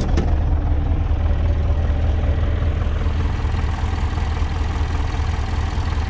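Deutz air-cooled diesel tractor engine idling steadily, a strong even low rumble.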